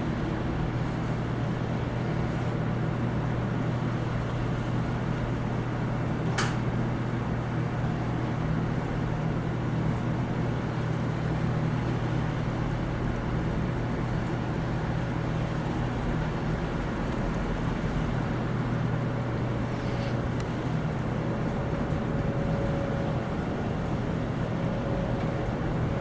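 Many ceiling fans running at once: a steady rush of moving air over a low, even motor hum, with a single faint tick about six seconds in.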